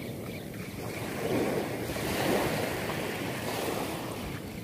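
Small surf waves breaking and washing up a sandy beach, swelling louder from about a second in, with wind buffeting the microphone.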